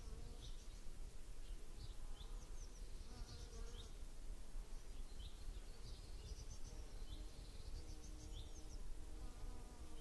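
Flying insects buzzing close by in several passes, about three seconds in, again later and near the end, over frequent short high chirps from small birds and a steady low rumble.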